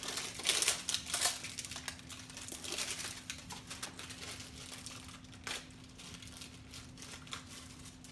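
Crinkling and rustling of packaging as a Funko Mystery Minis blind box is opened and the figure unwrapped. The crackling is dense for the first few seconds, then comes in scattered bits with one sharper click near the middle, over a faint steady hum.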